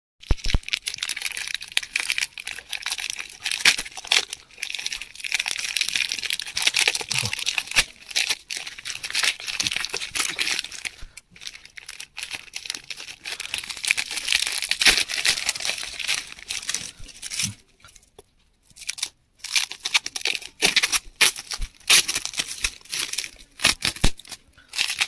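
Plastic courier mailer bag crinkling and tearing as it is ripped open by hand, in fits and starts with short pauses; near the end, bubble wrap around the box inside rustles as it is handled.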